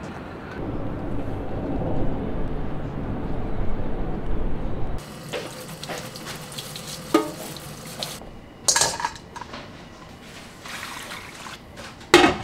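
A low, steady rumble for about five seconds, then a sudden change to tap water running into a stainless steel sink while a crab shell is scrubbed with a brush. There are a couple of sharp metal-and-glass clatters, the loudest near the end, as a glass pot lid is handled over a pan.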